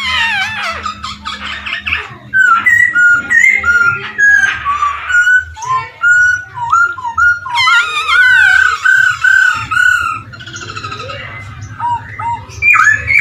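Poksay Hongkong laughingthrush singing loudly: a varied run of clear whistles, swooping glides and quick repeated notes, with a short break about ten seconds in before the song picks up again.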